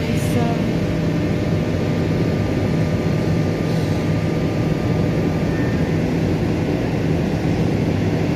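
Steady low mechanical drone of a running machine, holding one constant pitch throughout.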